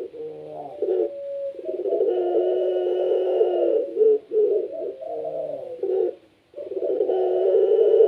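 Puter pelung turtle doves cooing in long, deep, continuous phrases, with several voices overlapping. There are brief breaks about a second and a half in and about four seconds in, and a short gap near the end.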